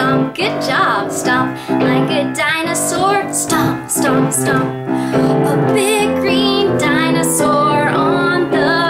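A woman singing a children's song over instrumental backing, her held notes wavering in vibrato.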